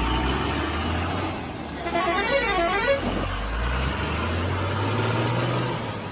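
Steady low vehicle-engine rumble, with a warbling, up-and-down horn-like tone for about a second, two seconds in.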